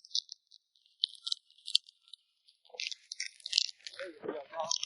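Light, irregular rattling and clicking, a few quick clicks at a time, getting busier near the end.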